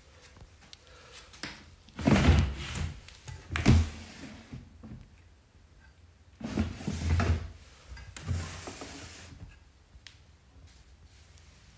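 Dresser drawers sliding open and shut with knocks, in two loud bouts a few seconds apart, the first about two seconds in and the second past the middle.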